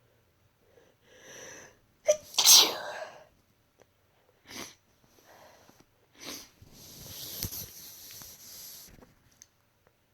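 A woman with a head cold sneezing once, loudly, about two seconds in, after a short breath in. A few short breathy sounds and a longer breathy exhale follow.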